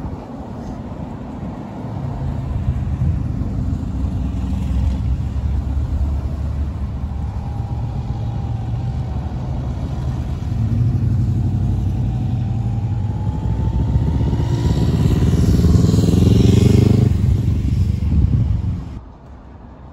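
Classic cars driving past one after another, their engines rumbling low and pulling away with rising pitch. A louder one accelerates past near the end, then the sound drops off suddenly.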